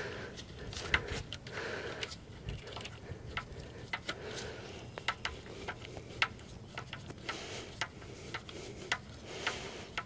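Irregular small metallic clicks and taps as a brass air-line fitting on a semi truck's suspension air bag is handled and connected.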